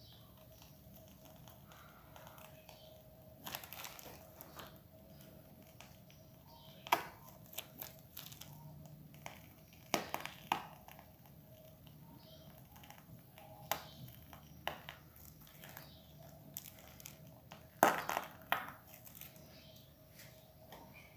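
Plastic piping bag crinkling as it is squeezed to pipe whipped cream onto a cake. A handful of sharp clicks and taps are scattered through, over a faint steady hum.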